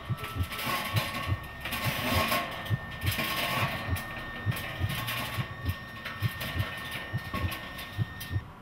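Suspense soundtrack: a low heartbeat-like pulse thudding about two to three times a second, under a thin steady high tone that cuts off near the end and swells of hiss.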